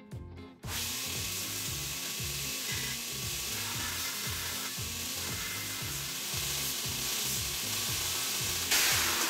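Belt grinder running as a small piece of steel angle iron is held against its abrasive belt to clean up the cut edges, a steady grinding hiss that starts about half a second in and gets louder near the end. Background music with a repeating bass line plays underneath.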